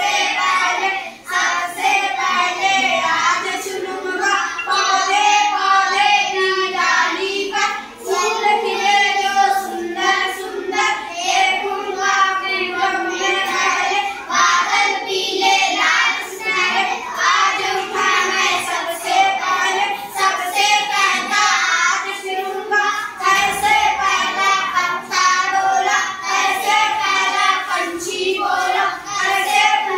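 A group of children singing a Hindi children's song together in unison.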